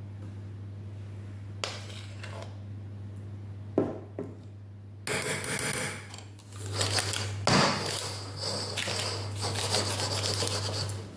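A metal spoon scraping cake batter around a metal springform pan, then the pan rubbed and swirled on a countertop, starting about halfway in. A few light knocks come before it, over a steady low hum.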